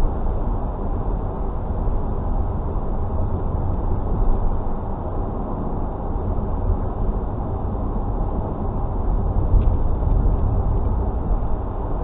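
Steady low rumble of a car driving along a road: tyre and engine noise with no distinct events.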